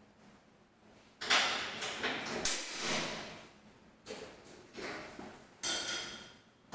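Metal grille door being opened: a run of clanks, rattles and scrapes that starts about a second in, with the sharpest knock a little later.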